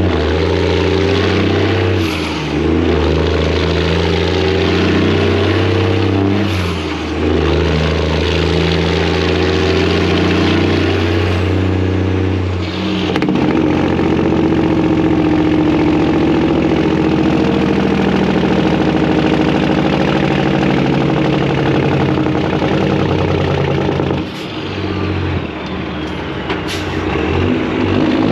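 Freightliner semi truck's Detroit diesel engine running loud. Its note shifts several times, with brief dips in level.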